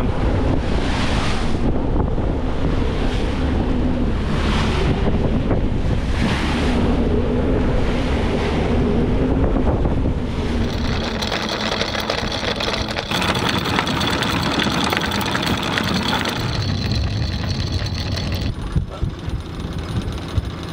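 Sailboat under way in strong wind: wind rushing over the microphone and spray off the waves, surging about every two seconds, with a faint steady whistle that the crew loves. After about ten seconds the sound changes to a steadier hiss with thin high tones, and it turns choppier near the end.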